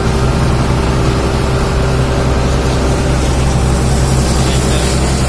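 A fishing boat's engine running steadily, a continuous low drone that holds the same level throughout.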